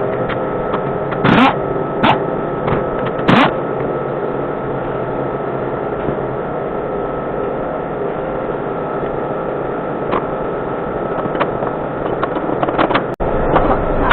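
A steady mechanical running sound with a constant hum. About a second and a half in and again at about three and a half seconds there are short, loud sweeps that fall in pitch. The sound cuts out for an instant near the end.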